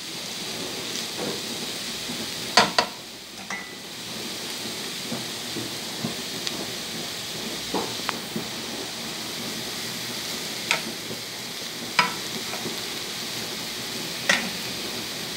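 Broccoli and bell pepper sizzling gently in a frying pan over a low gas flame, a steady hiss, with a stirring utensil clacking and scraping against the pan about eight times as the vegetables are stirred.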